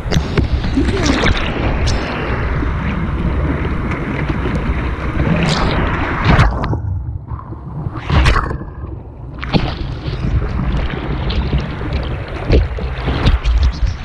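Rushing white water and splashing of a kayak being paddled through rapids, close to a boat-mounted camera, with wind buffeting the microphone; it eases briefly about seven seconds in.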